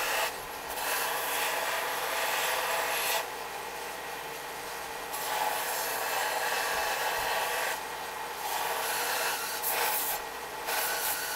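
Small tabletop belt grinder grinding the edge of a forged steel tomahawk head: a steady grinding hiss that swells and eases every few seconds as the steel is pressed to the belt and eased off, taking the bevel down to a sharp edge.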